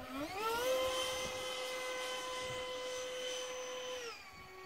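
RC model jet's motor whining in flight. The pitch rises sharply about half a second in, holds steady, then drops to a lower pitch near the end.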